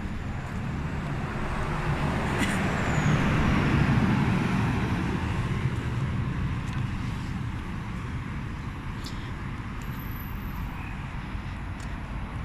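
Road traffic noise: a vehicle passes on the road, its engine and tyre noise swelling to a peak about four seconds in and then fading back into a steady background of traffic.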